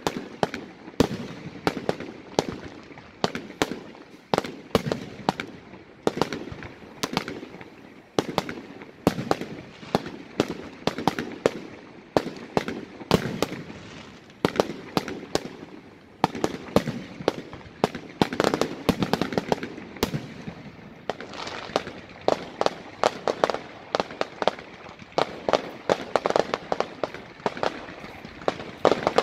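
Aerial fireworks display: shells bursting one after another in a steady run of sharp bangs, with crackling in between.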